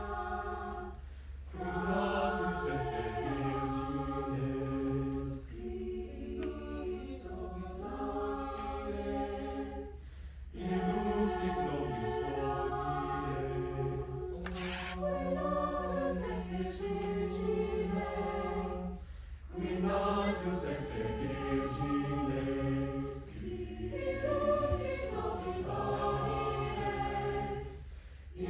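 Chamber choir singing sustained chords in long phrases, with brief breaks for breath between them, over a faint steady low hum.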